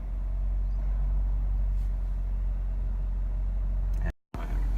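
A Jeep's engine idling steadily just after it has started. The sound cuts out completely for a split second near the end.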